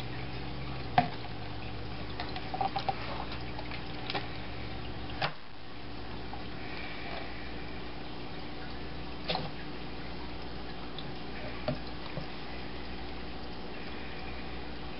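Scattered wet clicks and knocks as a knife works into a whole pink salmon in a stainless steel sink, over a steady low hum. The sharpest knock comes about a second in, with a quick cluster of small clicks a little later.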